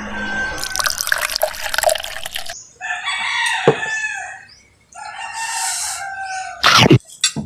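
A rooster crowing, with two long crows one after the other in the middle. Near the end comes a short, loud slurp.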